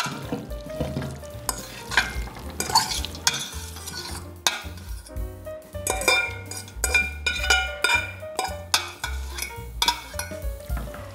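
Cooked fettuccine being tipped and scraped out of a stainless-steel pot into a pan of cream sauce: repeated scrapes and clinks of a utensil against the metal pot, with wet pasta sliding and squelching into the sauce.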